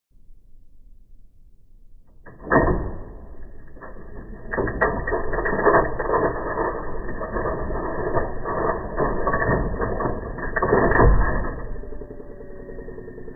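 National Model 1500 vintage cash register's mechanism being worked: a run of clattering gears and ratchets with many sharp clicks, loudest about two and a half seconds in and again about eleven seconds in, easing off near the end.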